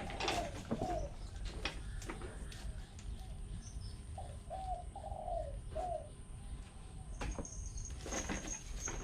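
A dove cooing: a phrase of short arched notes about four seconds in, with another brief coo near the start. Scattered knocks and rustles sound now and then.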